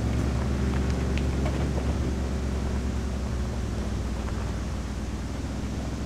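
2019 Mercedes G350's engine running steadily at low revs as the SUV crawls over rocks, a low even hum, with a few faint clicks about a second in.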